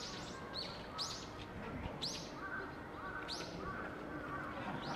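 A small bird chirping: short, high calls that drop quickly in pitch, repeated about once a second.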